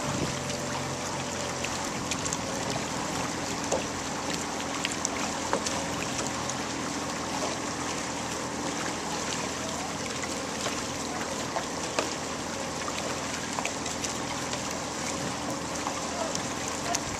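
Steady rush and lapping of water with small irregular splashes as paddles dip beside a moving outrigger canoe.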